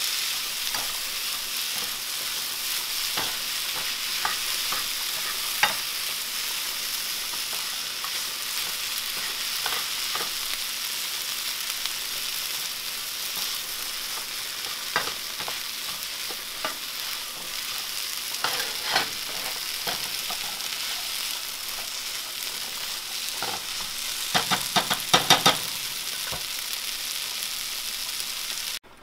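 Sliced onions sizzling as they brown in a nonstick frying pan. A plastic spoon stirring them scrapes and taps against the pan now and then, with a quick run of taps near the end.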